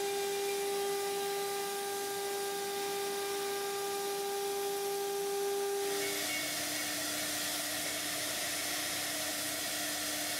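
AXYZ CNC router spindle running with a steady high whine over a hiss, carving a relief into Precision Board urethane. About six seconds in the whine drops to a lower pitch and the hiss gets stronger.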